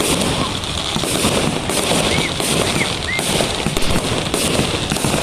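Fireworks display going off continuously: a dense, steady crackle of many overlapping pops and bangs.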